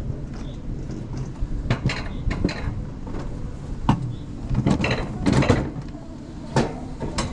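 Summer toboggan sled running along its metal track: a steady low rumble from the wheels, with sharp clattering knocks every second or so, some in quick pairs.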